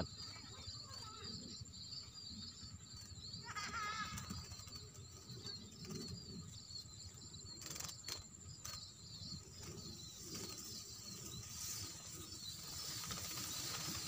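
Munias (emprit) chirping, a faint high twittering of quick small notes that goes on throughout, with two brief knocks about eight seconds in.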